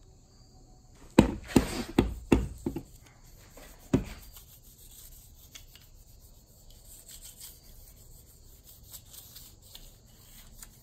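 A few sharp knocks in the first few seconds, then faint steady rubbing: an alcohol prep pad wiping down the chrome grille garnish to clean it before it is vinyl-wrapped.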